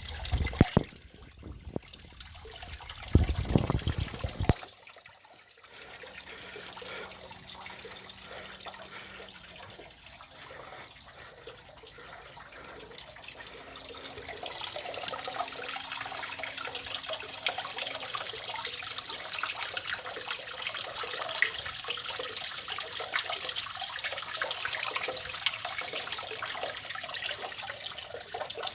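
Water running and trickling, building to a steady stream about halfway through. A few loud knocks and bumps come in the first few seconds.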